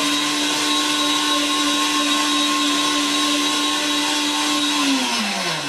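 Bosch VitaPower MMB 6174S high-speed blender running at maximum speed, blending vinegar and olive oil with leftover pesto into a dressing. The motor holds a steady high whine, then winds down with falling pitch near the end as it is switched off.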